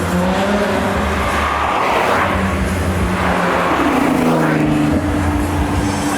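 A car engine running, with two surges of sound about two and four seconds in, over steady low tones.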